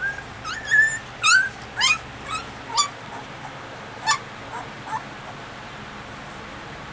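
Newborn Gampr puppies squeaking and whimpering while they nurse: about ten short, high squeaks, most rising in pitch, over the first five seconds.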